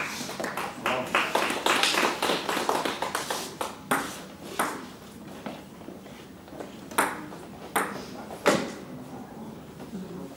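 Table tennis ball clicking off paddles and the table: a dense run of quick clicks over the first few seconds, then single sharp knocks spaced about a second apart.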